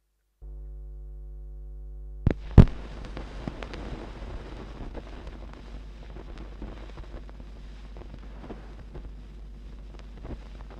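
A steady low hum comes up about half a second in. A little after two seconds, two sharp clicks sound as a turntable's stylus drops onto a 7-inch vinyl record. Faint surface crackle with scattered pops follows as the stylus runs through the lead-in groove.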